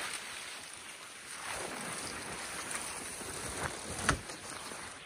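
Tent fabric rustling as a dome tent is handled and raised on its poles, with a sharp click about four seconds in.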